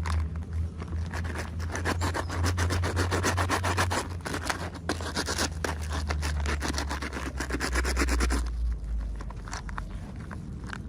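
Plastic packaging crinkling and rubbing as it is handled and opened: a quick, dense run of small crackles that stops a little over eight seconds in, over a steady low hum.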